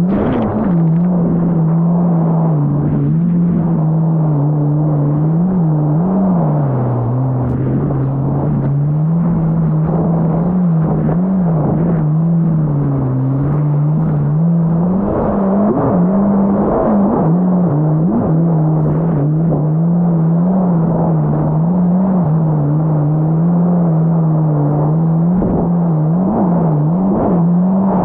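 Yamaha GP1800R SVHO jet ski engine running at a steady cruise, its pitch wavering slightly up and down with the throttle, over a constant rushing of wind and water.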